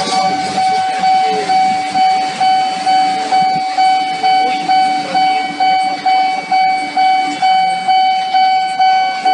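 Railway level-crossing warning bell ringing steadily at about two strikes a second, with a passenger train rumbling away in the background.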